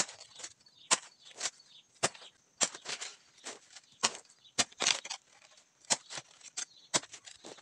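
Long-handled hoe chopping into loose red soil again and again, about one to two sharp strikes a second, with the scrape of earth being dragged back between strikes.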